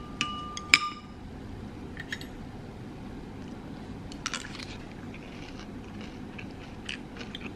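Metal spoon and fork clinking and scraping on a ceramic plate while eating rice: two sharp, briefly ringing clinks under a second in, then softer scattered clicks. A steady low hum runs underneath.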